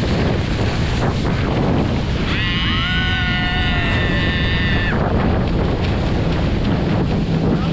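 Wind buffeting the camera microphone and water rushing past an inflatable banana boat towed at speed. About two seconds in, a long high-pitched held cry from the riders rises over the noise for a couple of seconds.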